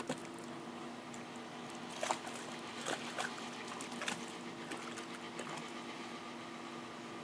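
Water splashing and dribbling a few times, about two, three and four seconds in, as a dog moves in a pool, over a steady mechanical hum.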